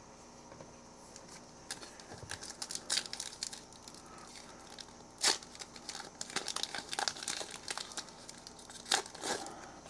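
Plastic trading-card pack wrapper being torn open and crinkled in the hands, a run of sharp crackles starting about a second and a half in, with two louder rips near the middle and near the end.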